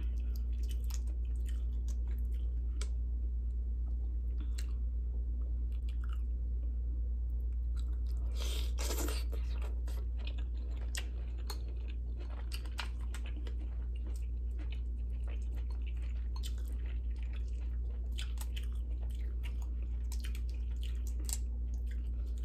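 Close-miked chewing and small wet mouth clicks of a person eating seafood, with a louder rustle about eight and a half seconds in. A steady low hum runs underneath.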